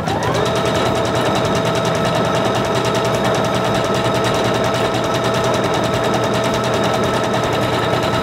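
Singer Confidence 7640 computerized sewing machine sewing a wide decorative stitch set to its maximum width of 7. The motor speeds up over the first half second, then runs at a steady speed with the needle working in a fast, even rhythm.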